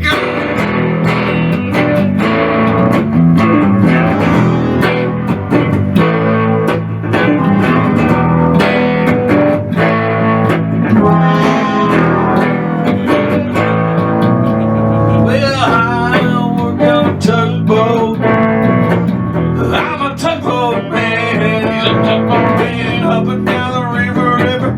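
Instrumental song intro: guitar-led music with a bass line and a steady beat.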